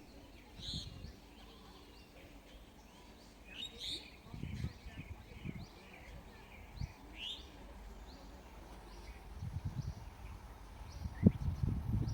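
Birds chirping: a few louder calls and a short chirp repeated about twice a second. Low rumbling and thumps under them grow louder over the last few seconds.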